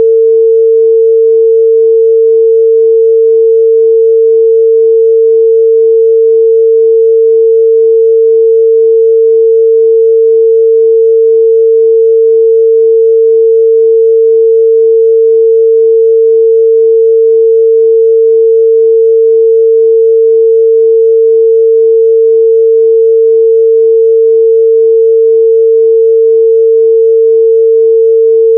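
Continuous 451 Hz pure sine test tone, a single steady midrange pitch held at constant loudness.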